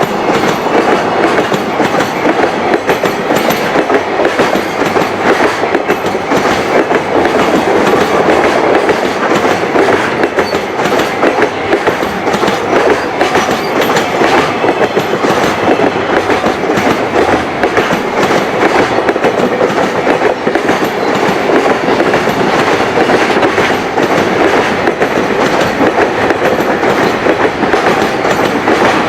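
Long freight train running past without a break, its wheels clattering steadily over the rail joints.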